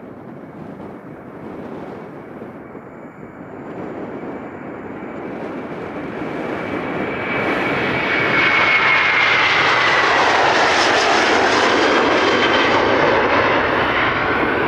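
Jet airliner taking off, its engine noise building from a distant rumble to a loud, steady noise as it passes close by; a high fan whine slides down in pitch about eight seconds in.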